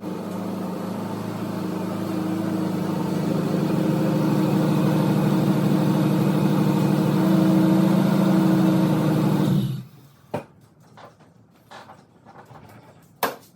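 Truck engine running steadily, growing slightly louder, then cutting off suddenly about ten seconds in; a few faint knocks and clicks follow.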